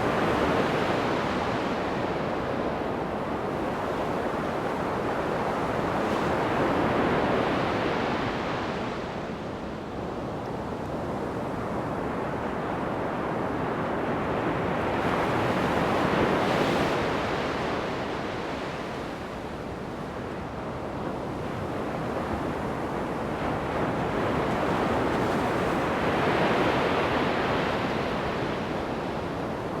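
Surf on a sandy beach: waves breaking and washing up the shore, swelling and easing about every nine or ten seconds.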